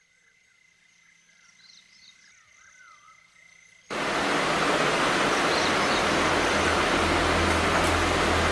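Faint warbling chirps over a low hiss. About four seconds in, a loud steady rushing noise with a low hum starts abruptly and carries on evenly.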